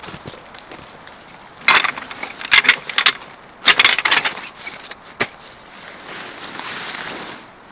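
Carry bag of a KingCamp canvas cabin tent being opened: several quick rasping bursts and a sharp click as the bag is undone, then softer rustling of the heavy canvas as it is pulled out and unfolded.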